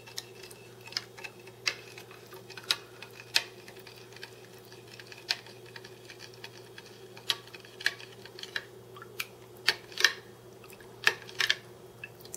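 Metal spoon clinking against the sides of a glass Pyrex measuring cup while stirring salt into water to dissolve it, with irregular sharp clinks every second or so over a faint steady hum.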